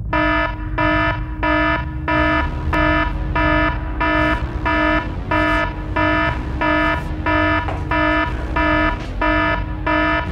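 An electronic alarm beeping in a steady repeating pattern, about two short beeps a second, over a steady low rumble.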